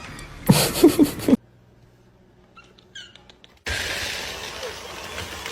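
Pet animal noises: a loud burst of knocks and short cries about half a second in, a few faint high squeaks around the middle, then a steady rushing noise through the last two seconds.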